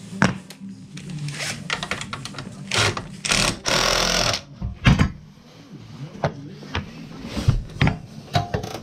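Knocks, clicks and rattling of hand tools and metal parts as a scooter exhaust is being fitted, with a denser burst of clatter lasting about a second midway.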